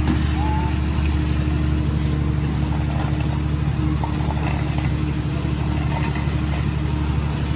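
Diesel engines of asphalt-paving machinery, a paver and road rollers, running steadily at a constant speed with an even hum.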